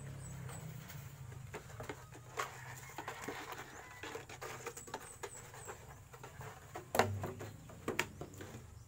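Irregular clicks, taps and rustles of objects being handled at the ground, with two louder knocks about seven and eight seconds in.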